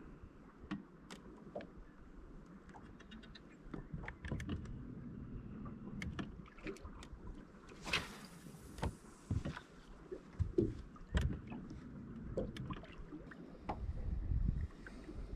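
Light clicks and knocks from rod, reel and hull, over a low rumble of water and wind around an aluminum bass boat. About eight seconds in comes one brief whoosh of a cast, the line hissing off the spinning reel.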